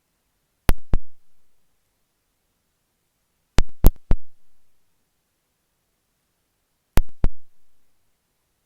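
Sewing pins being flicked against an earphone microphone. Sharp clicks come in groups of two or three, about every three seconds, with silence between them.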